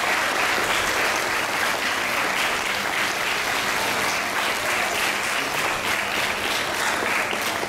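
An audience applauding steadily: many hands clapping in a dense, even patter.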